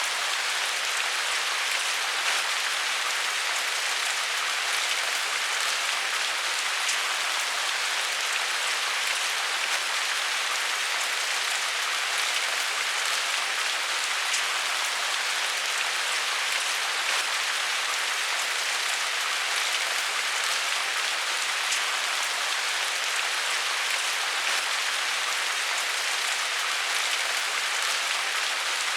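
Steady rain falling, an even hiss of drops with fine pattering ticks and no thunder.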